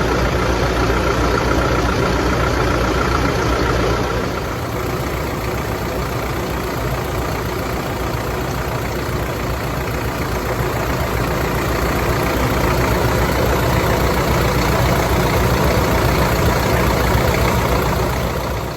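Hino Ranger truck's diesel engine idling steadily, running on its newly replaced drive belt and pulley after a belt noise repair.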